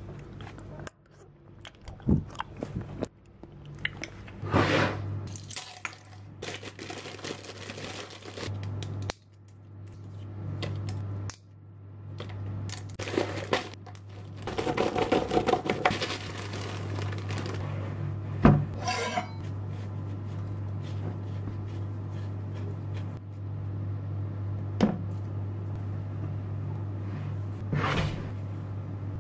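Kitchen handling sounds: a metal spoon scraping ice cream in a small bowl, a plastic zip-top bag rustling as pistachios are handled in it, and a glass mixing bowl moved on the counter, with sharp clicks and knocks throughout over a steady low hum.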